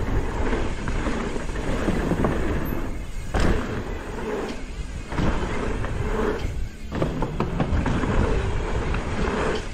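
Wind rushing over the camera microphone as a mountain bike rattles over a bumpy dirt trail at speed, with uneven thuds and dips in the noise.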